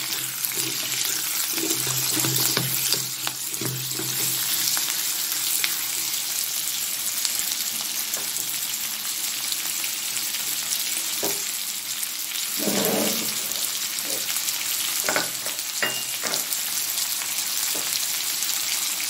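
Pork belly, carrot, broccoli stems and onion sizzling in hot oil in a nonstick wok, a steady hiss. Short scrapes and knocks come in the first few seconds and a few more later on.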